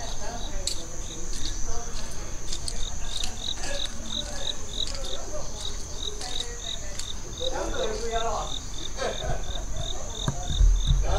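Insects calling: a steady high-pitched buzz, with an even, rapid chirping of about four chirps a second running over it.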